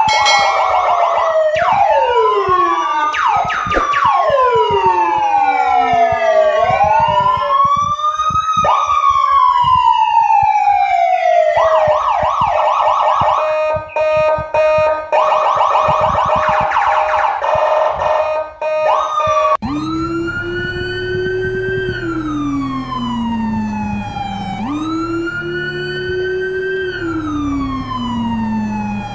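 Emergency-vehicle sirens wailing, several overlapping and sliding up and down in pitch. About twelve seconds in they give way to a steady tone with a rapid warble. From about twenty seconds a single slower wail rises and falls, about every four and a half seconds, over a steady low engine-like hum.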